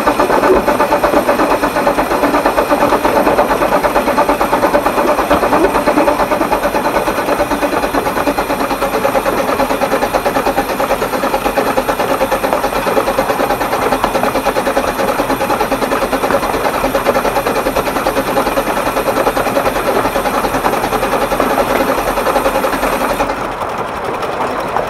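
12¼ in gauge steam locomotive built by the Exmoor Steam Railway, running along level track hauling four coaches, with a fast, steady beat. It turns slightly quieter and duller about a second before the end.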